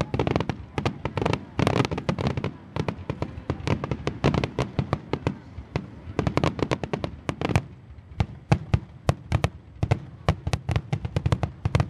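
Fireworks finale: a rapid, unbroken barrage of shell bursts and crackling bangs, several a second.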